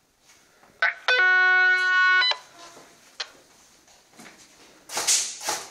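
A loud, steady alarm tone lasting just over a second, starting with a click. A short burst of noise follows near the end.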